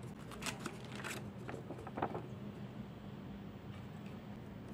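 Paper and card rustling as items are handled in a cardboard box: a few short rustles and taps in the first two seconds, then only a low steady hum.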